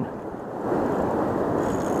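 Steady rushing noise of wind buffeting the camera microphone over the river, growing louder about half a second in and then holding steady.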